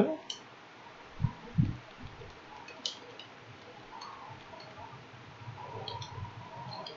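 Faint computer keyboard keystrokes as scattered sharp clicks, with two low thumps a little over a second in.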